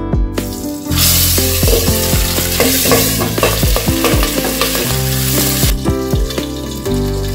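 Turmeric-marinated catfish pieces frying in hot mustard oil in a steel kadai: a loud sizzling hiss breaks out about a second in as the fish hits the oil. It drops sharply to a quieter sizzle near the end, once the glass lid is on the pan.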